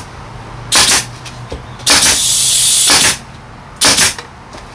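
Staple gun firing TPO roofing membrane onto a wooden vent curb: two short, sharp bursts, with a hiss of about a second between them.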